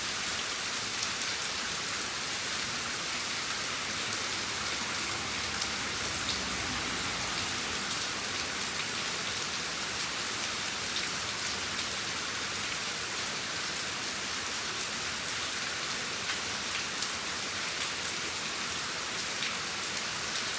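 Steady rain falling, an even hiss with scattered sharper ticks of individual drops striking a surface.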